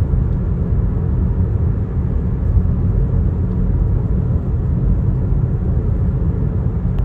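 Steady low rumble of a car's tyres and engine heard from inside the cabin while driving on a paved highway.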